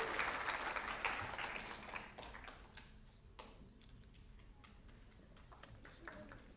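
Audience applause dying away over the first two seconds, then quiet with scattered faint clicks and taps.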